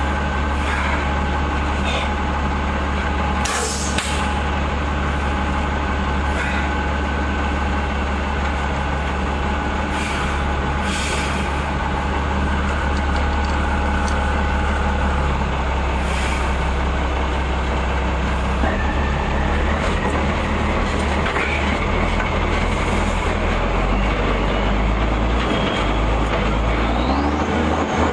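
Engine of an M35 'Reo' 2½-ton army truck running as it drives off-road: a steady low drone whose pitch shifts a few times in the second half, with short hissing bursts now and then.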